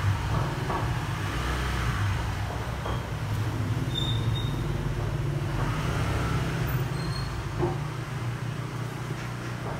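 Steady low background rumble, with a few faint clicks as the shoe and its paper tag are handled.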